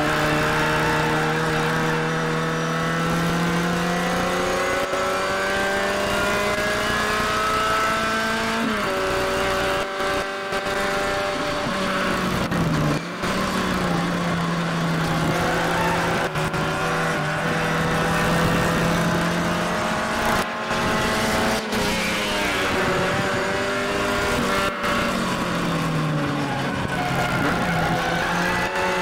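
Classic Mini race car's engine heard from inside the cabin at racing revs. Its pitch climbs steadily for the first several seconds, drops sharply at a gear change about nine seconds in, and keeps falling and climbing again as the driver lifts, shifts and gets back on the throttle.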